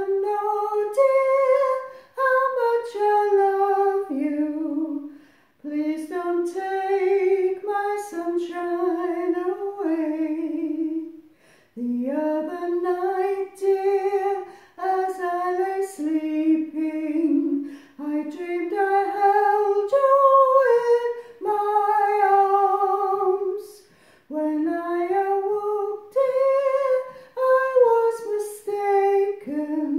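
A woman's soprano voice singing alone, unaccompanied, in phrases of a few seconds with brief breaths between them.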